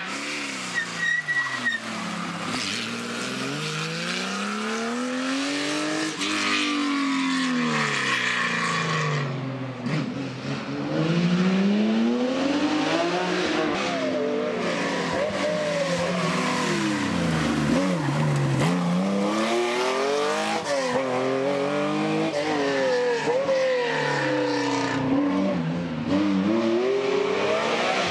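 Historic rally car engines revving hard through a bend. The pitch climbs and drops again and again as the cars brake, change gear and accelerate away.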